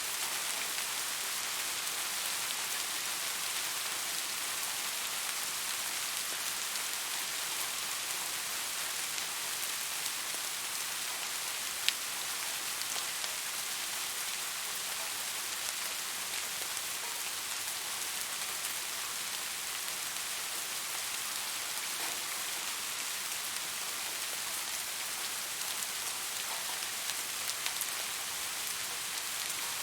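Steady summer rain falling on surfaces, an even hiss with scattered drop taps and one sharper tap about twelve seconds in.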